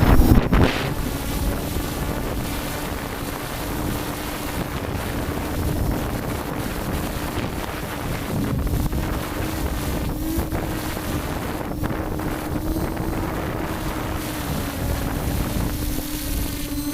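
S550 multirotor drone's electric motors and propellers humming at one steady pitch in flight, heard from the on-board GoPro, with wind rushing over the microphone.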